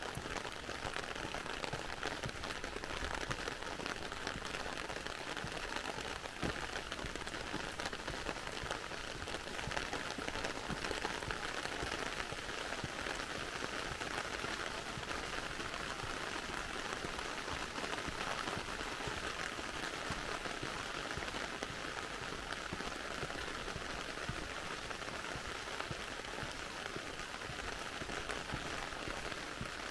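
Heavy rain falling steadily on wet pavement and road, an even hiss.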